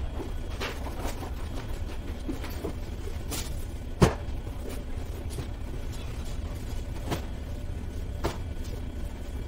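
A steady low rumble with scattered light knocks and footfalls on a wooden floor. About four seconds in there is one sharp knock as a block lying on the floor is handled.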